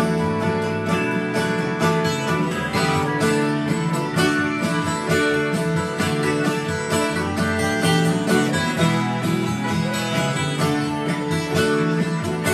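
Acoustic guitar strummed in a steady rhythm, an instrumental passage without singing.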